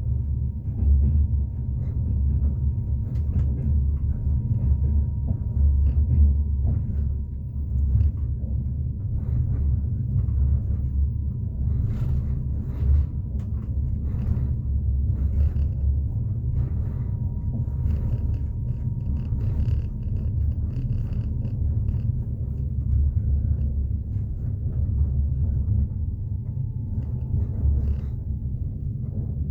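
Train wheels running on the rails, heard from inside a passenger carriage: a steady low rumble with frequent irregular knocks of the wheels over rail joints. A faint thin whine holds steady and dips slightly in pitch near the end.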